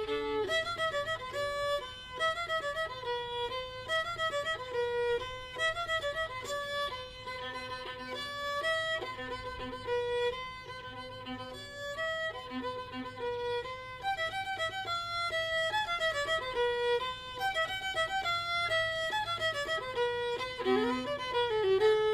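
Background music: a solo fiddle tune of quick, stepping notes.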